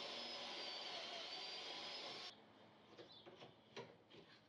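Ridgid cordless drill boring a dowel hole into the edge of a white oak board through a doweling jig, running steadily with a high motor whine, then stopping suddenly about two seconds in. A few light clicks and taps follow as the jig's clamp is handled.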